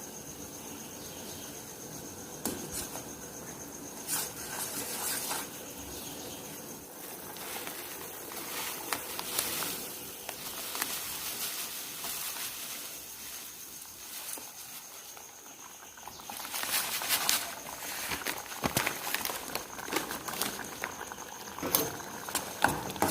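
Pan of hot salted water simmering on the stove as butter and corn flakes for cuscuz go in, with scattered small clicks; from about two-thirds of the way in, a spoon stirs and scrapes the thickening corn mixture in the pan, louder and rougher.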